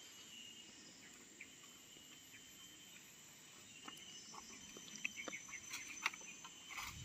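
Steady faint drone of insects, with a few light clicks and rustles that grow more frequent in the second half.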